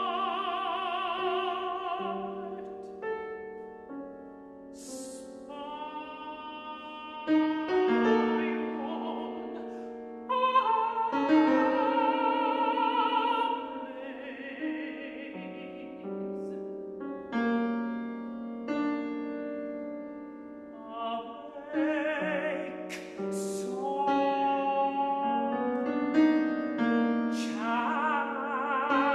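Countertenor singing held notes with vibrato in a contemporary art song, accompanied by a grand piano.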